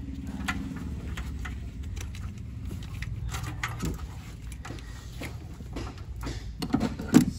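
Hands working a wiring harness loose in an engine bay: scattered light clicks, rattles and rubbing of plastic connectors and hoses, with a louder knock near the end, over a low steady hum.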